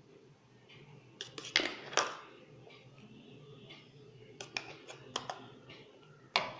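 Spoon knocking and scraping against a jar and bowl as eggless mayonnaise is spooned onto chopped vegetables: a few sharp taps, loudest about two seconds in, and another cluster of lighter clinks about five seconds in.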